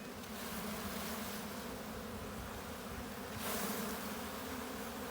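A steady hum of honeybees buzzing around an opened hive, with a short burst of hiss about three and a half seconds in.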